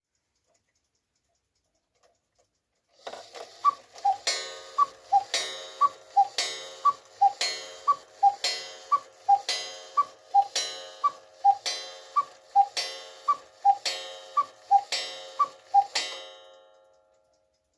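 Romanian Victoria Arad cuckoo clock calling cuckoo twelve times, about once a second, starting a few seconds in. Each call is a two-note bellows whistle, high then low, over a gong strike that rings on. The freshly repaired bellows are a bit out of tune.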